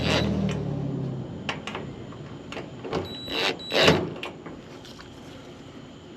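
A steady motor-like hum fades out within the first second. Then come scattered clicks and knocks, the loudest about three and a half to four seconds in, from hands working on the dryer's door switch and panel parts.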